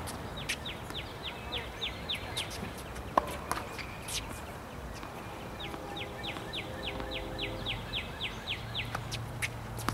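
A bird singing two runs of quick repeated down-slurred notes, about five a second, with a few sharp knocks scattered among them.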